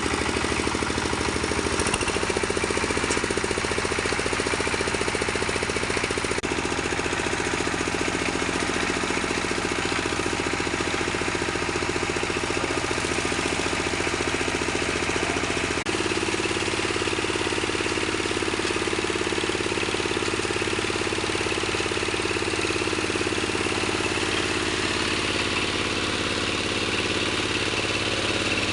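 Engine-driven wood crusher machine running steadily with an even mechanical drone. Its tone shifts abruptly about sixteen seconds in.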